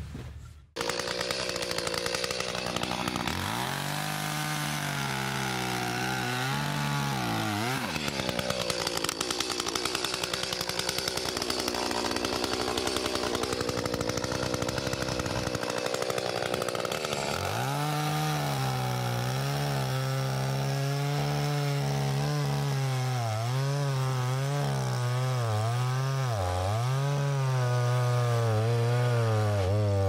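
Gas chainsaw running and cutting through a stump's roots down in the dirt, its engine speed rising and dipping again and again as it bogs in the cuts.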